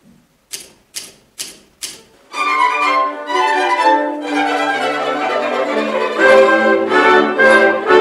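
Four crisp typewriter key strikes about half a second apart, then the orchestra's strings come in with a brisk tune about two seconds in, with more typewriter clicks over the strings.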